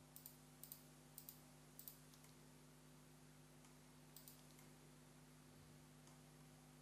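Faint computer mouse clicks selecting faces on screen: four quick pairs of clicks in the first two seconds and one more pair about four seconds in, over a low steady hum.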